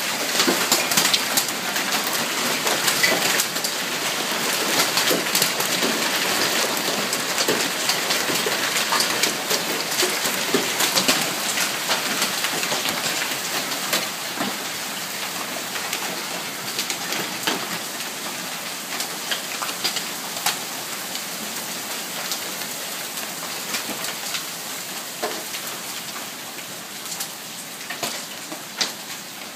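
Heavy shower of ice pellets pelting down: a dense hiss studded with many sharp ticks of pellets striking. It eases off over the second half.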